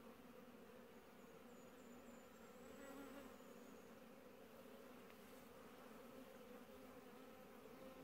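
Faint, steady buzzing hum of honey bees swarming over an opened hive during an inspection.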